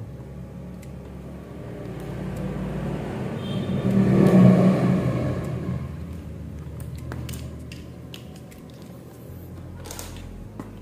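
A passing motor vehicle's rumble swells to a peak about halfway in and fades away. Small sharp clicks from wires and connectors being handled follow in the second half.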